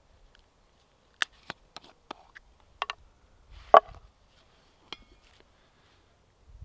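Firewood being chopped: a run of irregular sharp wooden knocks, the loudest one a little under four seconds in.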